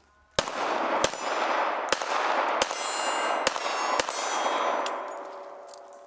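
Six shots from a Kahr P380 .380 ACP pocket pistol, roughly one every two-thirds of a second, with steel targets clanging and ringing after the hits. The ringing dies away over about two seconds after the last shot.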